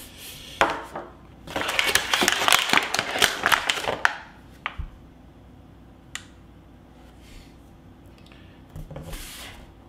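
Plastic toy packaging crinkling and crackling for about two and a half seconds, followed by a few isolated light clicks as small plastic pieces are handled.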